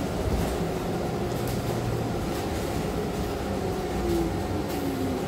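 Inside a moving city transit bus: the steady rumble of the engine and the road, with a few light rattles. Near the end a drivetrain whine falls in pitch.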